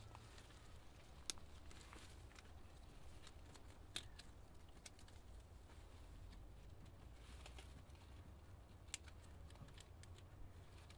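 Near silence over a low rumble, broken by three sharp small clicks (about a second in, four seconds in and nine seconds in) as a hive strap is worked through its buckle by hand.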